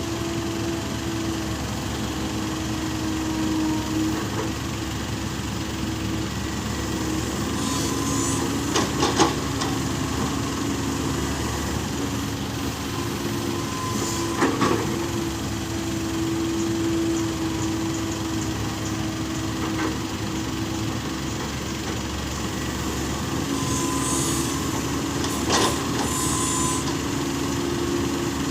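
Small six-wheel truck's engine running steadily, with a few short sharp knocks along the way.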